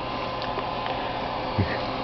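Steady whir of the cooling fan in a Fat Cat CB linear amplifier, with a faint electrical hum under it and a soft bump near the end.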